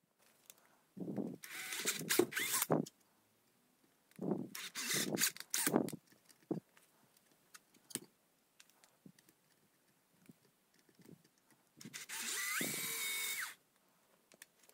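Bosch GSR cordless drill boring into a plastic panel, in three short bursts of one to two seconds each, with small handling clicks between them. In the last burst near the end, the motor whine rises and then holds steady.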